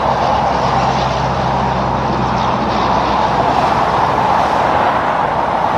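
Highway traffic passing: a tractor-trailer and cars, with a steady tyre roar and a low engine drone that fades out about halfway through.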